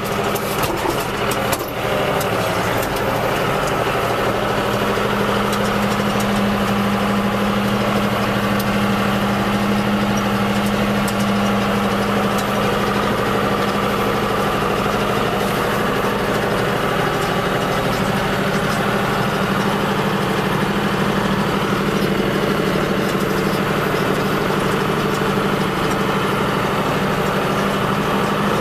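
Tractor engine running steadily under load while it drives a front-mounted roller crimper through a field. There are a few sharp clicks in the first two seconds.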